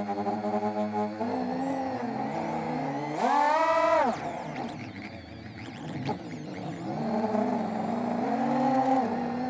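FPV quadcopter's brushless motors whining, the pitch shifting up and down with the throttle. About three seconds in, a sharp throttle punch sends the whine much higher and louder, and it drops back within a second.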